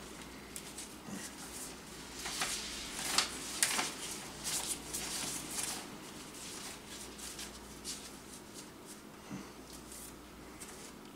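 Paper banknotes rustling as they are drawn out and flicked through by hand while being counted: a run of soft crinkles and flicks, busiest in the first half, with fainter single flicks later.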